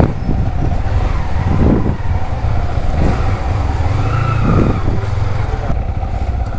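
Yamaha R15 V3's single-cylinder engine running as the motorcycle pulls away at low speed, its note rising and falling twice with the throttle.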